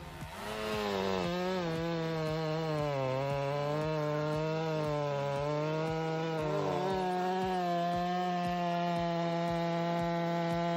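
Chainsaw cutting through wood, its engine note dipping and recovering under load over the first half, then holding steady.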